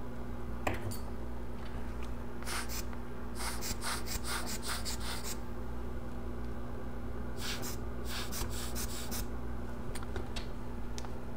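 Short scratchy strokes of a fine tool scraping and scrubbing hardened face grease out of an iPhone 7 Plus ear speaker mesh, in two runs of quick strokes about four a second, over a steady low hum.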